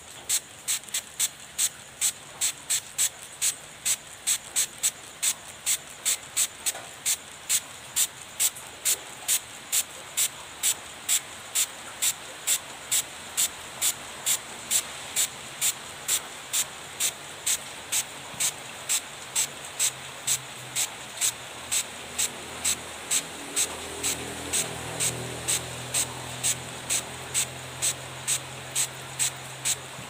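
Trigger spray bottle pumped over and over, each squeeze giving a short hiss of water spray, about two sprays a second in a steady rhythm. A faint low hum comes in underneath in the second half.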